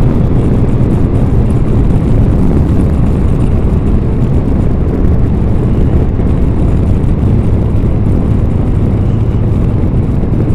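Triumph three-cylinder motorcycle cruising at steady road speed: a continuous engine drone under a loud rush of wind and road noise, with no change in pace.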